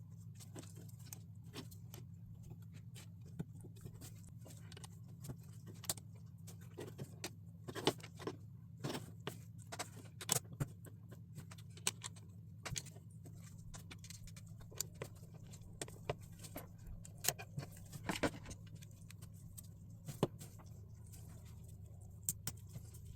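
Plastic LEGO pieces clicking and rattling as they are handled and snapped together: irregular small clicks and taps, a few louder ones, over a steady low hum.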